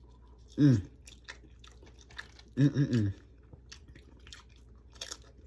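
Close-up chewing and crunching of tortilla chips from a nacho salad, with two short closed-mouth "mmm" hums of enjoyment, one about a second in and a longer one near the middle.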